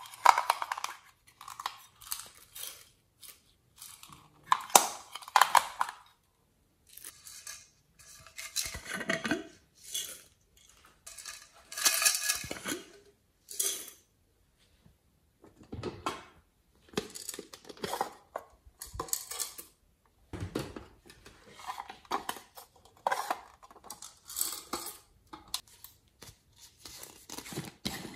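Small hard plastic cases and jars handled and clicked open, and sequins shaken out of a plastic bottle onto slime. Short scattered bursts of clicking, rattling and rustling, with brief pauses between.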